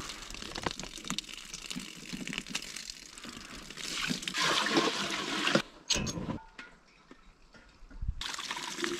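Water trickling from the partly opened brass valve of a plastic IBC water tote into a stainless steel pot. It grows louder about four seconds in, cuts off sharply a little past halfway, and picks up again near the end.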